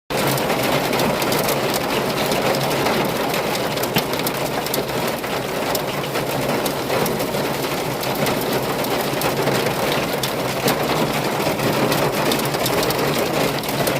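Hail pelting a van's roof and body: a dense, steady clatter of countless small impacts.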